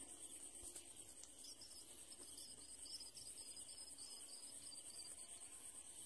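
Faint, steady high-pitched insect trilling, with a run of short high chirps in the middle.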